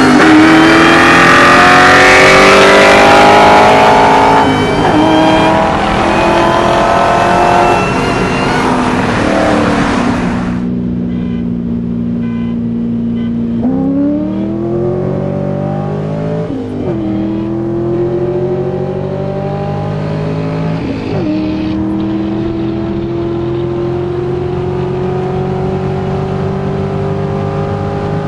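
Car engine accelerating hard through the gears. The pitch climbs in each gear and drops back at each upshift: two shifts in the first ten seconds, a few seconds of steady cruising, then another pull with two more upshifts. A loud rush of wind noise covers the first ten seconds and cuts off suddenly.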